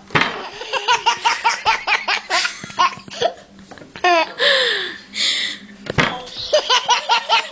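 Baby laughing in quick runs of short giggles, with a breathy, squealing stretch in the middle and a short click about six seconds in.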